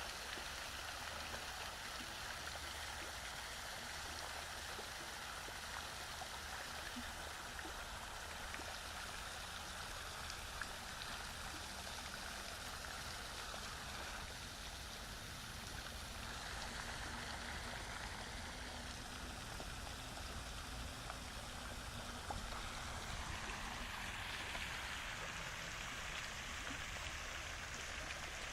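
Steady rush of flowing water, continuous and even, with a few faint clicks.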